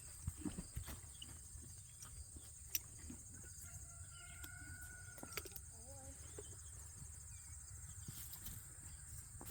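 Faint outdoor ambience: a steady high-pitched insect buzz, with scattered light clicks, a low rumble and a short tonal call about halfway through.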